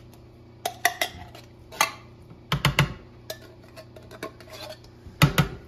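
Metal spoon scraping and clinking inside an opened tin can as canned kidney beans are spooned out into a plastic colander. A few louder knocks come about two and a half seconds in and again near the end.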